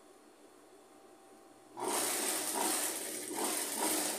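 Industrial sewing machine stitching fabric strips onto denim, starting suddenly about two seconds in and running in a few short surges.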